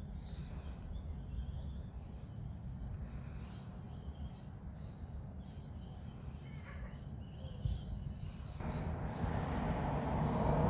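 Outdoor background noise: a steady low rumble with faint, scattered bird chirps. A louder rushing noise builds over the last two seconds.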